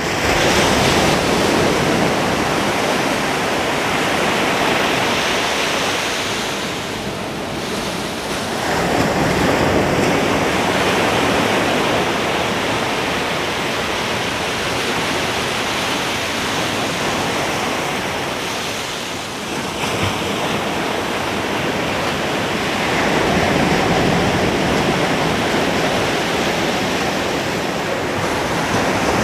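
Ocean surf breaking on a beach: a continuous rushing wash that swells up with each incoming wave, several times over, easing briefly in between.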